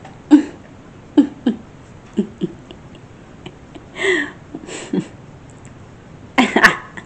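A few short, scattered bursts of a person's voice with quiet gaps between them, about eight in all, the loudest and longest near the end.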